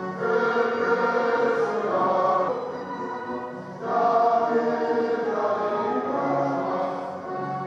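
Choral music: a choir singing long held notes over accompaniment, with a new, louder phrase starting about four seconds in.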